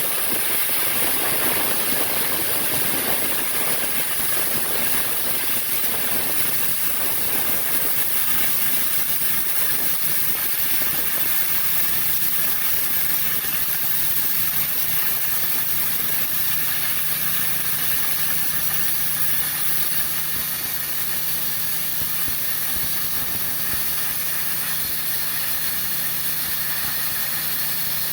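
Plasma cutter running, a steady hiss of the compressed-air arc. A low steady hum joins about twelve seconds in.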